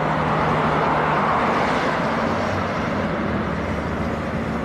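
Steady rushing of strong wind, with a faint low hum beneath it.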